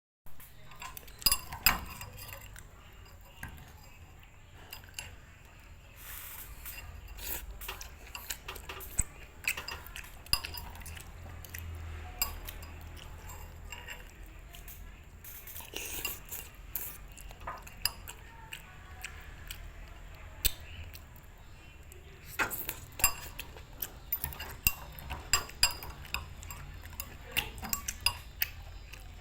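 Metal utensils clinking and scraping against pans and dishes in irregular sharp knocks, busiest near the start and in the last third, over a low steady hum.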